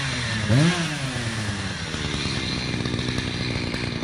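Echo CS-590 Timberwolf two-stroke chainsaw, revved once briefly about half a second in, then dropping back to run steadily at a low, even speed.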